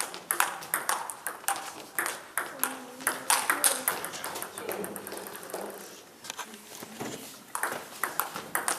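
Table tennis ball clicking rapidly off the bats and table during a rally. The rally stops about four and a half seconds in, there is a quieter pause, and a new rally starts near the end.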